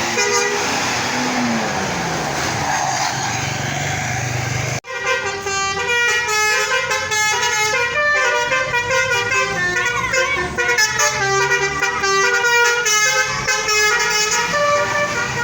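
A bus goes by, its engine and tyre noise falling in pitch as it passes. After a sudden break about five seconds in, a Basuri telolet bus horn plays a tune of quick, stepping multi-tone notes.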